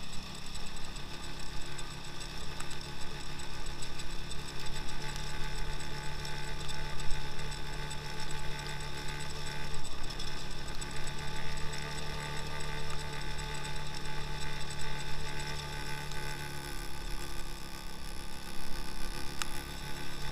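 Engine of a 2x2 all-wheel-drive motorcycle running at a steady speed under way, a constant note that barely changes in pitch.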